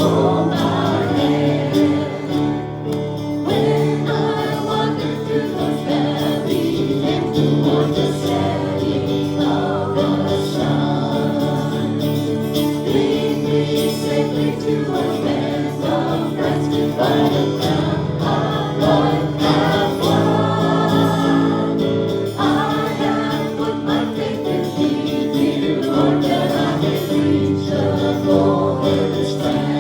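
Gospel music: a choir singing over steady, sustained instrumental accompaniment.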